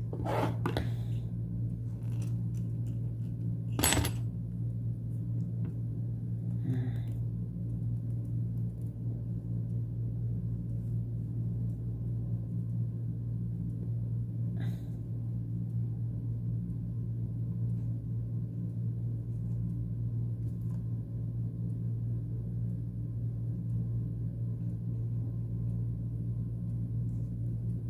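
A steady low hum, with a few light clicks and taps from small objects being handled, the sharpest about four seconds in.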